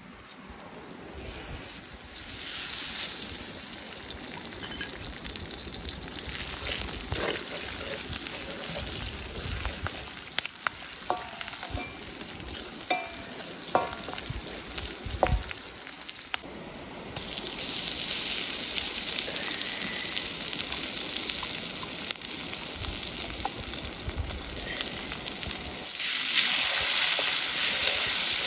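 Food frying in hot oil in a pan, with a steady sizzle and a few sharp clicks of a utensil against the pan while it is stirred. The sizzle gets louder about two-thirds of the way through and again near the end.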